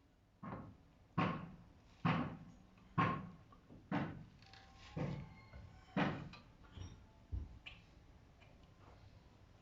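A hammer striking metal about nine times, roughly once a second, each blow sharp with a short ring; the last two blows are duller.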